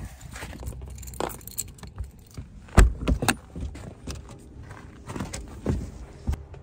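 Jangling with a run of clicks and knocks, the loudest a thump nearly three seconds in; a faint steady hum comes in about four seconds in.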